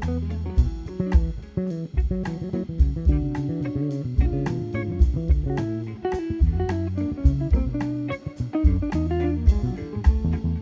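Live instrumental jazz from a small band: guitar playing over a walking bass line, with drum-kit hits keeping time.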